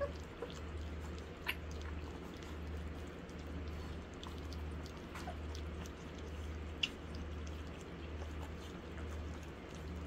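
Kerry Blue Terrier puppies eating raw hamburger and milk formula from a shallow dish: soft wet chewing and smacking clicks, two of them sharper. A steady low hum runs underneath.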